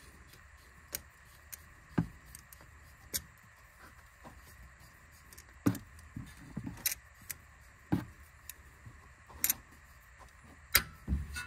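Sharp metallic clicks and clinks of vise-grip locking pliers being set and clamped onto a steering inner tie rod, a dozen or so irregularly spaced knocks with quiet between them.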